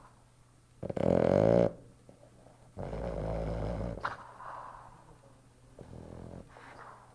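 Sleeping Boston terrier snoring: a loud, rattling snore about a second in, a lower, longer one around the third second, then softer, breathier snores.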